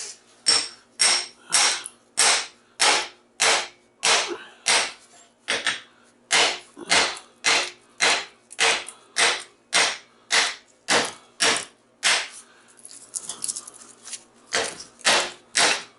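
Hammer blows on a transformer's steel core held in a vise, knocking the copper coil out of the laminations. A steady series of sharp strikes, a little under two a second, then a short pause and three quicker strikes near the end.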